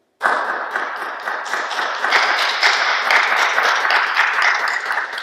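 Applause: a crowd clapping, starting suddenly and keeping up at full strength.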